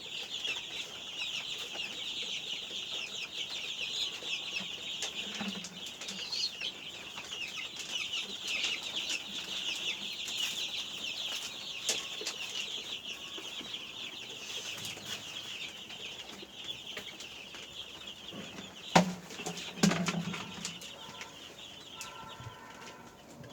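A brooder full of 12-day-old chicks peeping continuously, many high chirps overlapping, thinning out near the end. Two loud knocks come about a second apart near the end.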